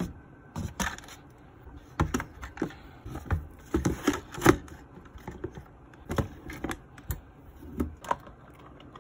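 Irregular clicks and knocks of plastic tubs and lids being handled and set down in a hard plastic compartment, with lead sinkers rattling inside a clear plastic tub; the loudest knock comes about halfway through.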